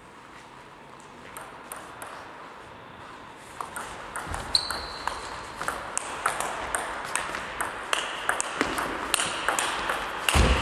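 A table tennis rally: the ball clicking against the bats and table about twice a second, getting louder as the rally goes on, with a low thump near the end.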